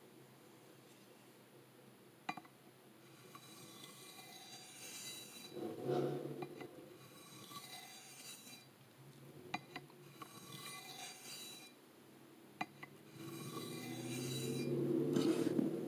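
Steel knife blade stroked repeatedly across a DMT diamond sharpening plate, a scratchy rasp in spells of strokes. A Ford Mustang's engine runs in the background, swelling about six seconds in and again near the end, where it is the loudest sound.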